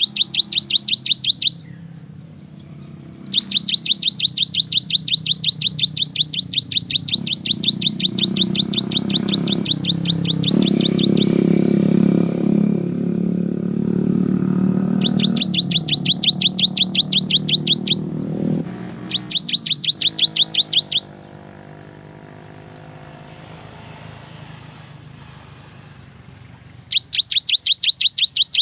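Cinereous tit (gelatik batu) singing in bursts of fast, evenly repeated high notes, several runs lasting a few seconds each with pauses between them. Under the middle runs, a lower droning sound swells and then fades.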